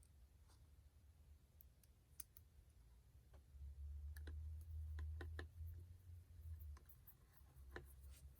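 Faint scattered small clicks of a screwdriver driving small screws into a laptop's hard drive mount, with light handling of the parts, most of them in a cluster about halfway through.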